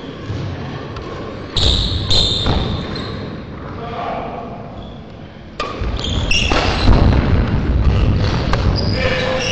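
Badminton play on an indoor court: sharp racket-on-shuttle hits and impacts, with shoe squeaks and footsteps on the court floor, and voices in the hall.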